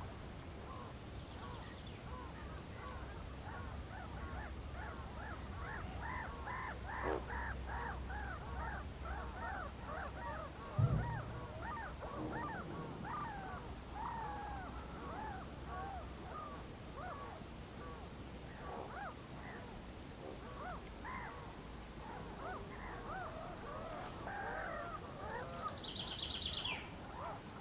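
A flock of whooper swans calling continually, many overlapping calls at once, over a low steady rumble. A single dull thump about eleven seconds in, and a small bird's rapid high trill near the end.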